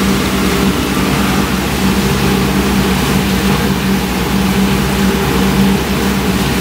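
Steady engine drone: an even low hum with a few held tones under a constant hiss, unchanging throughout.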